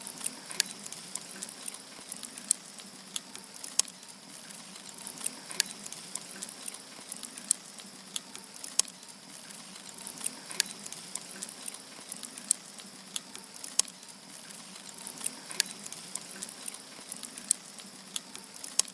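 Wood fire crackling: firewood logs burning with irregular sharp pops and snaps over a steady hiss.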